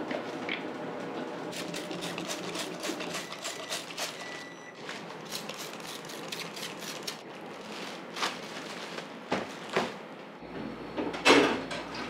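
Thin plastic bag crinkling and rustling in quick crackles as it is handled over bowls of bread dough, followed by a few knocks and a louder clatter near the end.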